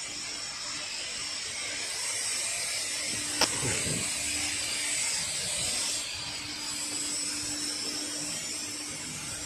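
Steady hum and hiss of machinery running in a shipyard dry dock, with a single sharp knock about three and a half seconds in.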